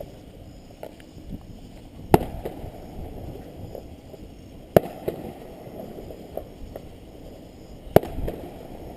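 Fireworks bursting overhead: three loud bangs about two and a half to three seconds apart, each trailed by smaller crackles and a low rumble.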